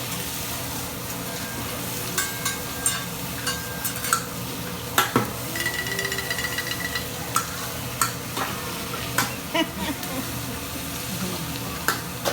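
Steady sizzling of food frying on a hibachi griddle, with scattered sharp clinks and taps of utensils and dishes and a short ringing tone about six seconds in.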